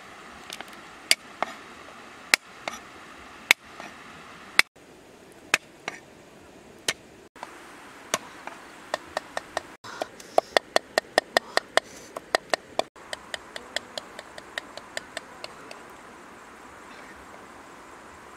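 Steel cleaver chopping on a wooden stump chopping block: single sharp chops about a second apart, then a fast even run of about five chops a second that gets quieter and stops a couple of seconds before the end, over a steady faint hiss.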